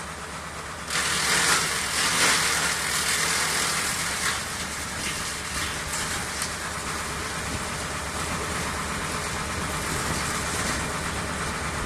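AGT SSBX42S wood chipper running with a steady engine note; about a second in, a louder rushing noise joins and carries on, with a few scattered ticks.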